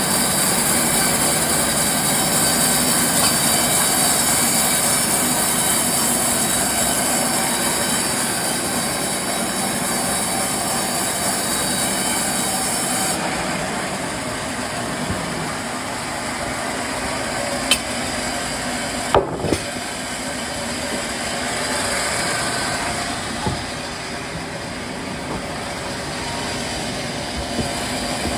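Sawmill machinery working logs, a loud steady mechanical din, with a few sharp knocks partway through.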